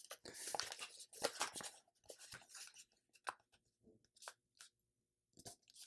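Faint crinkling and crackling of a sheet of paper being folded and creased by hand. It is busiest in the first two seconds, then thins to scattered light crackles.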